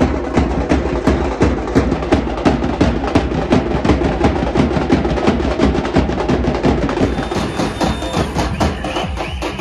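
Several large double-headed drums with metal shells, beaten with sticks in a fast, driving, steady rhythm.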